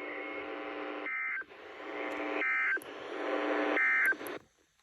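NOAA Weather Radio EAS end-of-message data bursts, the short digital 'NNNN' tone bursts sent three times, about 1.3 seconds apart, to mark the end of the alert. They play over a steady buzzing hum from the radio that cuts off after the third burst.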